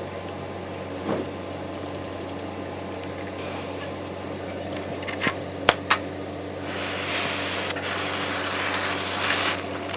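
A chipping hammer taps a few times on the slag of a fresh stick weld about halfway through, over a steady machine hum. A scratchy hiss follows for a couple of seconds near the end.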